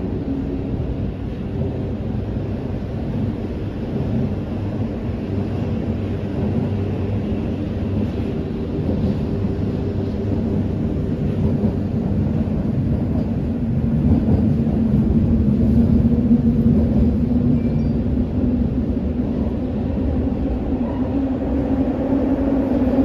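Toei 12-000 series linear-motor subway car running, heard from inside the car: a continuous rumble of wheels on the track with a low steady hum. The hum grows louder from about halfway through.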